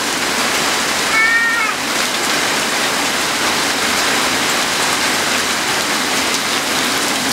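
Heavy rain pouring steadily, a dense even hiss. About a second in, a brief high-pitched cry sounds over it.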